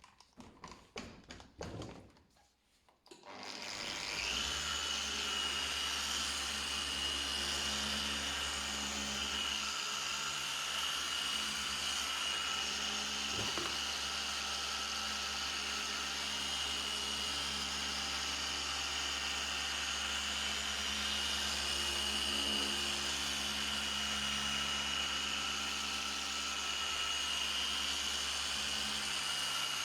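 A quick series of clicks, then an electric power tool starts about three seconds in and runs steadily with a constant whine, as used for sanding or polishing a car headlight.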